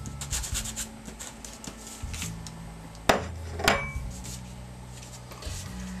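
Craft materials handled on a tabletop: paper rubbing and scraping with small clicks, and two sharp knocks about three seconds in, roughly half a second apart.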